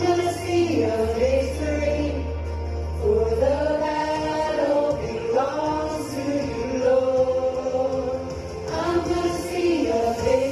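Worship song: voices singing a slow melody over instrumental accompaniment, with a held bass note in the first few seconds.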